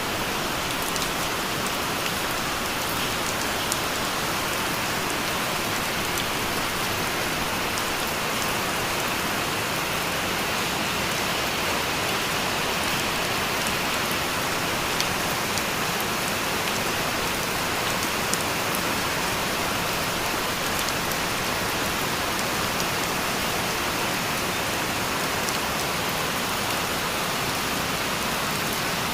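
Steady rain: an even hiss, with scattered sharper drop ticks here and there.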